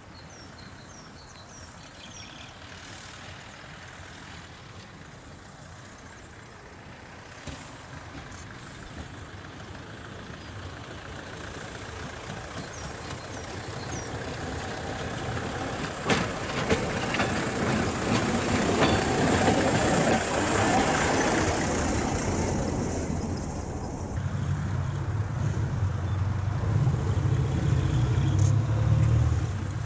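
Wmd motor draisine approaching on narrow-gauge track, its engine and wheels growing steadily louder, with sharp clicks of the wheels over rail joints and a high hiss from the rails as it comes close. In the last few seconds its engine runs close by with a steady low hum.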